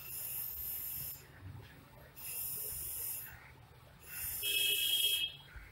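Pencil strokes scratching across drawing paper as lines are ruled in. There is a rasping stroke about a second long roughly every two seconds, three times in all, and the third, near the end, is the loudest and has a slight squeak in it.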